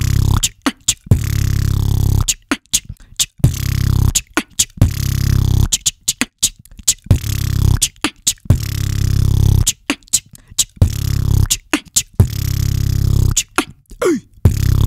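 A beatboxer performing a trap beat into a cupped handheld microphone: long, deep bass notes held for a second or more, alternating with sharp clicks and snare-like hits in a repeating pattern.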